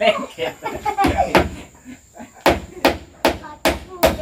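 A hammer striking nails into wood: five sharp, evenly paced blows, about two and a half a second, starting about halfway through, as when nailing up wall boards. Voices can be heard before the hammering starts.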